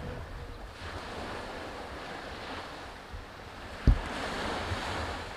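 Small waves breaking and washing up a sandy beach, the surf hiss swelling around a second in and again in the second half, with wind rumbling on the microphone. A single dull thump just before four seconds in.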